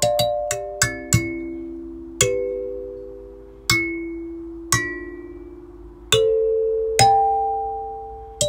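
Background music: a slow chiming melody of single struck notes, each ringing and fading. After a quick run in the first second, the notes spread out to about one every second or so.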